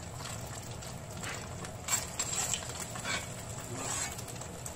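Beaten eggs frying in hot oil in an iron pan, a steady sizzle with scattered sharp crackles and pops.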